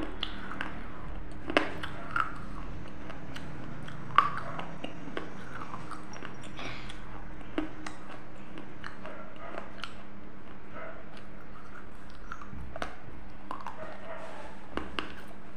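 Close-miked biting and chewing of baked clay diya pieces: a few sharp crunches and snaps, the loudest about four seconds in, between quieter gritty chewing. A faint steady hum lies under it.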